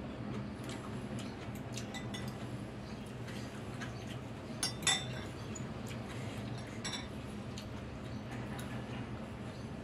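Metal fork and spoon clinking against a ceramic noodle bowl while stirring and lifting noodles, with two sharp clinks close together about halfway and lighter taps around them. A steady low hum runs underneath.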